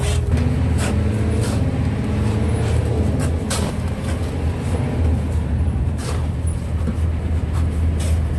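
Boat engine running steadily with a low hum, with scattered scrapes and knocks of shovels working crushed ice on the deck.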